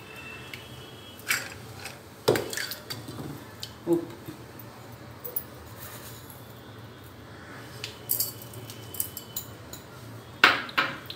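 Clinks and knocks of steel utensils against a stainless steel mixer-grinder jar as soaked dal and then salt are added to it, the sharpest knocks about two seconds in and near the end.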